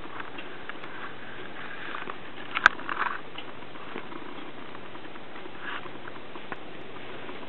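A cat sucking on a person's hand, with faint wet clicks and smacks over a steady hiss. One sharp click comes about two and a half seconds in.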